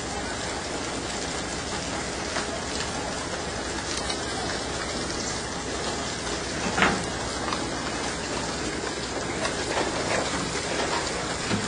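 Steady rush of sea water churning along a moving boat's hull, with one sharp knock about seven seconds in and a few fainter ones.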